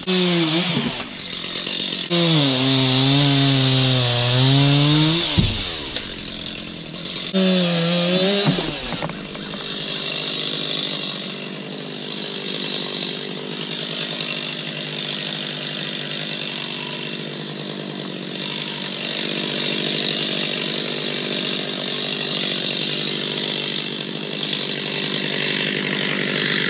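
Stihl chainsaw running under load in a cut, its engine pitch wavering for about five seconds, then a second short cut about seven seconds in. After that a steady hiss with no engine tone.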